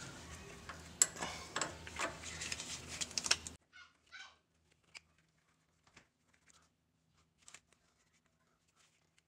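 Scattered, irregular clicks and clinks of hand tools on the rack-and-pinion mounting bolts, over a low steady background hum. About three and a half seconds in, the sound drops abruptly to near silence, leaving only a few faint ticks.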